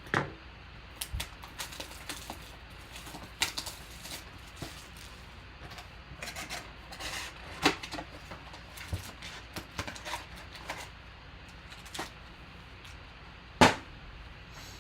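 Scattered clicks, taps and rustles of trading cards and card packs being handled on a tabletop, with one sharper knock near the end.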